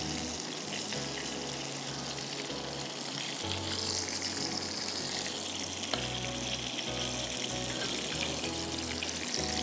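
Hot oil sizzling steadily in a frying pan on a gas burner, under soft background music.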